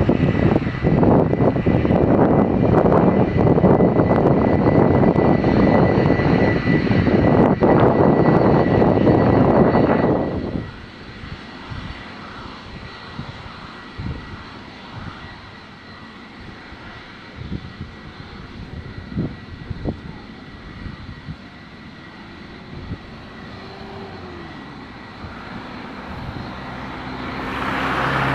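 Jet airliner engines running loud on the runway, cutting off abruptly about ten seconds in. After that a much fainter steady engine hum remains, rising again near the end.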